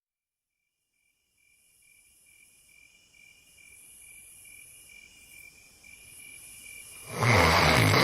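Crickets chirping in an even, pulsing rhythm, fading up from silence; about seven seconds in, a loud snore breaks in over them.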